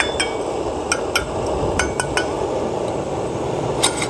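Light metallic clinks from a double-walled stainless steel tumbler being handled and its lid turned, about seven scattered knocks, several with a short ring.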